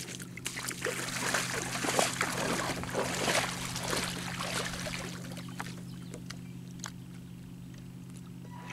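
Legs in neoprene waders splashing and sloshing through shallow lake water, loudest in the first few seconds and dying down as the wading stops, over a steady low hum.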